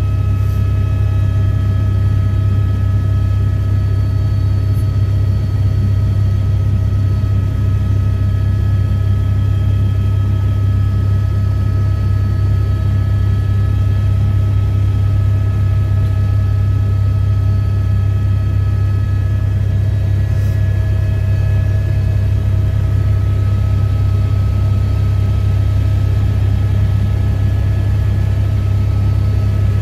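Airbus H125 (AS350 Squirrel) helicopter in cruise flight, heard from inside the cockpit: a loud, steady low drone with several steady whining tones over it.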